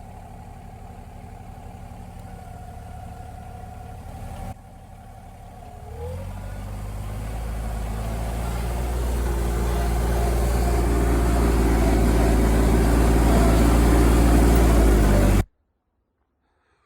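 Diesel engine of a Kubota KX057-4 excavator running steadily, then growing louder over several seconds as it works, before cutting off suddenly near the end.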